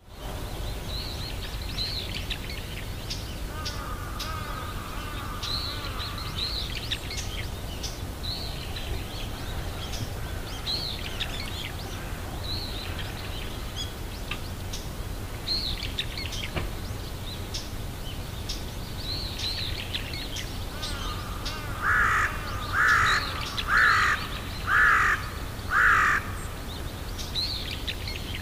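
Outdoor birdsong: small birds chirping on and off, over a steady low rumble. Near the end a large bird gives five loud, harsh calls about a second apart.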